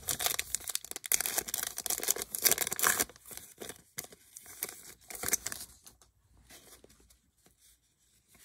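Paper trading card pack wrapper torn open and crinkled by hand for about three seconds, followed by softer rustling as the cards are handled, fading out near the end.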